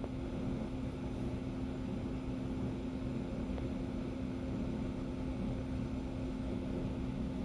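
Steady mechanical room hum with a constant low tone, like an air conditioner or fan running.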